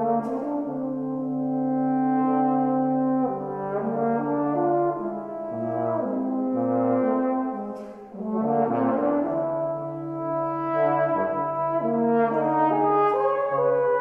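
Tenor and bass trombone playing a duet: the bass trombone's sustained low notes under the tenor trombone's higher line, with a short break in the sound about eight seconds in.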